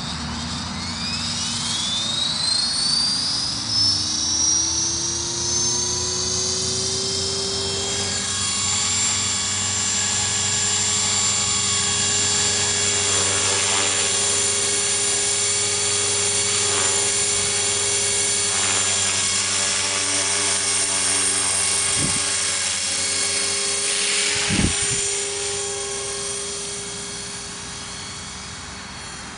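Align T-REX 450 SE V2 electric RC helicopter spooling up, its motor and gear whine rising in pitch over the first several seconds, then holding steady as it hovers and flies. Two short knocks late on, and the sound fades a little near the end as it flies away.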